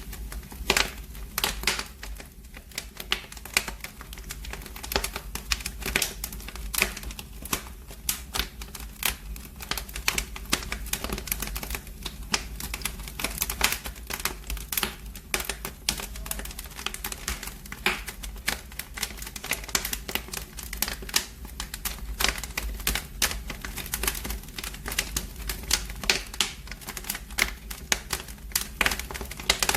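Wood fire in a fireplace crackling, with many irregular sharp pops and snaps several times a second over a low steady rumble.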